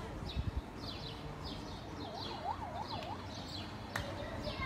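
Small birds chirping, a quick falling chirp about twice a second, with a faint emergency siren wailing rapidly up and down for about a second midway.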